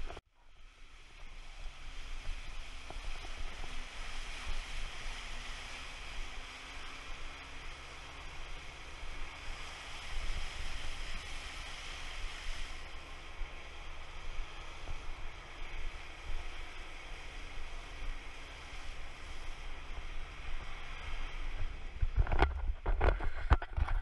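Off-road 4x4 jeep driving through shallow water and wet volcanic sand: a steady rush of tyre spray and wind buffeting the outside-mounted camera over a low engine rumble. Near the end it turns into a heavier rumble with knocks as the tyres run over gravel.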